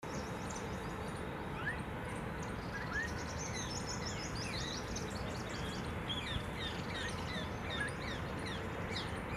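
A group of silverbills calling: many short, high chirps and quick slurred notes, with a rapid run of notes a few seconds in. A steady low background noise runs underneath.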